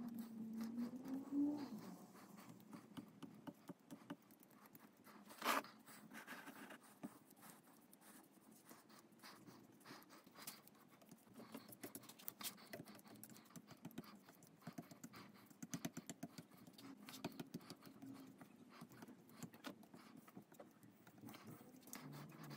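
Paintbrush laying gold paint onto a clock case: faint, quick scratchy brush strokes, with one sharper click about five and a half seconds in.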